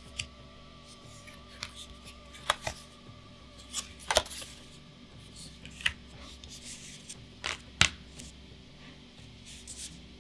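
Trading cards being handled by hand: a series of about nine short, sharp card snaps and taps at irregular intervals.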